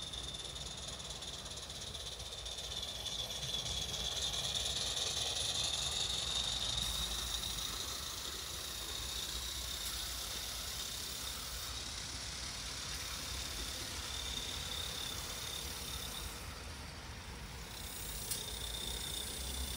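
Steady hiss of a live-steam garden-scale model locomotive running along the track, swelling for a few seconds a few seconds in as it passes close.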